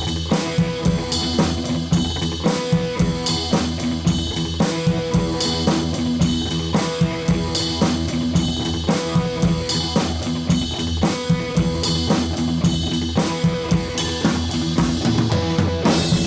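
Background music: a track with drum kit and guitar on a steady beat, about two beats a second.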